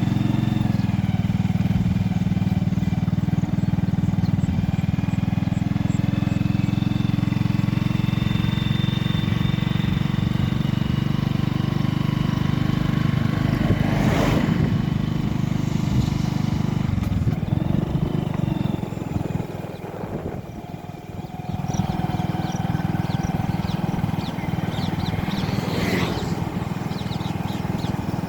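A safari vehicle's engine running steadily, with two brief rushes of noise. The engine eases off for a moment about twenty seconds in, then picks up again.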